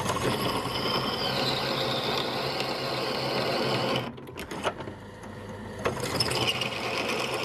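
Bench drill press running, its twist bit cutting into a metal plate. The cutting noise drops away about four seconds in, with a few sharp clicks, and builds again near the end.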